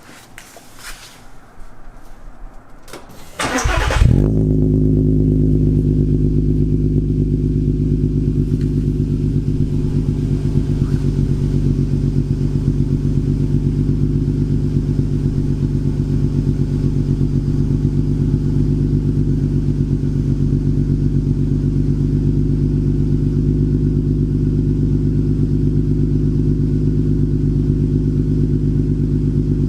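Volkswagen Eos VR6 engine breathing through an aftermarket Magnaflow exhaust (Magnaflow 10416 muffler, 2.5-inch pipe, dual tips). After a few faint clicks, the starter cranks and the engine catches about four seconds in, flares up briefly, then settles into a steady idle.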